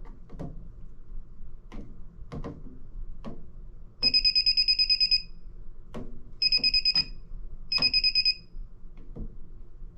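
Handheld receiver of an XT33A circuit breaker finder beeping in three bursts of rapid high-pitched pulses, a longer one of about a second and then two shorter ones, as it passes over the breakers. The beeping marks the breaker that carries the transmitter's signal. Light clicks and taps fall between the bursts.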